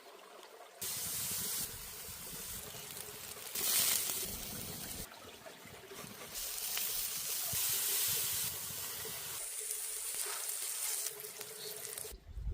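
Hissing, trickling cooking sounds, with no clear tone or rhythm, that change abruptly every second or two.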